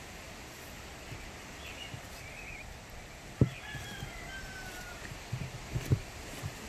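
Faint rooster crowing, twice, over outdoor background noise, with two sharp thumps, one about halfway through and one near the end.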